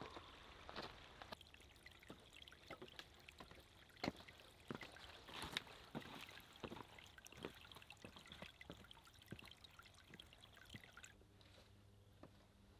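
A small forest stream faintly trickling over rocks, with scattered footsteps on leaf litter and stones.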